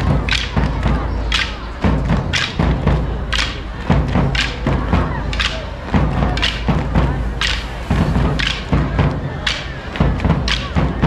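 Live percussion music: a steady beat of heavy drum strikes about once a second, with lighter, sharper hits in between.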